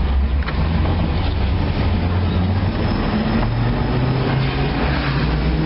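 Pickup truck's engine running and tyres hissing on a wet road, heard from inside the cab; the engine note rises in the second half as the truck speeds up.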